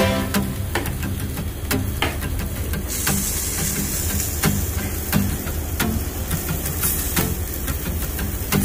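Pork belly sizzling on a tabletop barbecue grill grate, a steady hiss with scattered sharp clicks and pops as the slices are turned with metal tongs. The hiss grows brighter about three seconds in.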